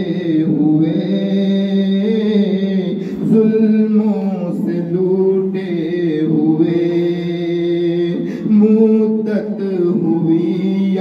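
A man singing a devotional salaam unaccompanied into a handheld microphone, in long, held, ornamented notes with brief breaks for breath.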